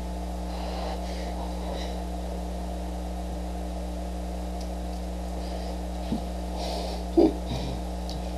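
Steady low electrical hum, with two brief short sounds, the louder about seven seconds in.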